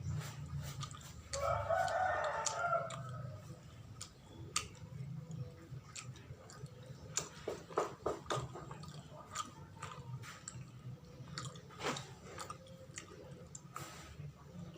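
Close-up chewing and wet mouth clicks from eating sticky glutinous-rice sawella, with a rooster crowing once in the background about a second in.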